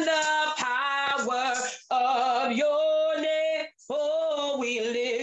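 A woman singing a gospel worship song solo, in three long phrases of held, wavering notes with short breaths between them.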